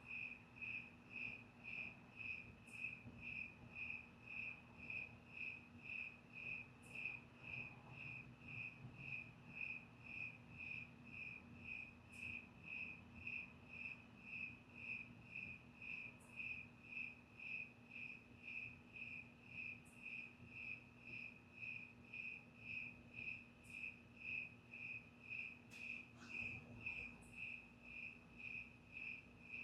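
A cricket chirping at an even, steady pace, a little over two short chirps a second.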